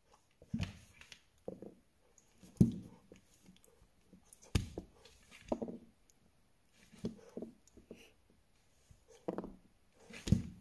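Bernese Mountain Dog puppy chewing and mouthing a treat: irregular short chomps and soft knocks, roughly one every second or two, with one louder one a little over two seconds in.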